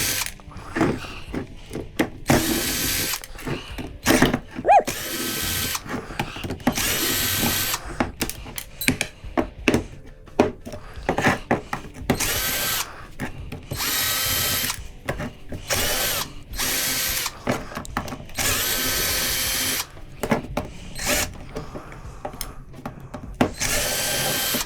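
Power drill backing screws out of PTAC fan motor housings, run in about a dozen short spurts with a whine that rises as it spins up each time. Short clicks and knocks of metal parts come between the runs.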